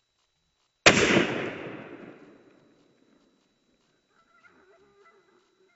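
A single shotgun shot about a second in, fired at a roe deer; the report rolls away in an echo that fades over about two seconds.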